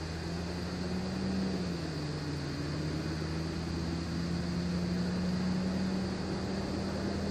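Steady mechanical hum with a low tone that dips in pitch about two seconds in and slowly climbs back, over a constant hiss.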